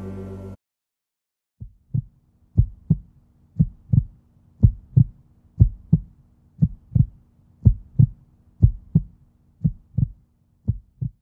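Music cuts off abruptly, then a heartbeat beats steadily: about ten double thumps, lub-dub, roughly one a second.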